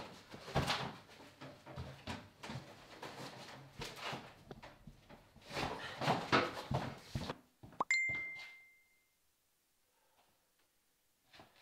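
Rustling clothes, shuffling feet and irregular thumps of a person hurriedly getting dressed. About eight seconds in comes a sharp click, then a single bright ding that rings for about a second and fades.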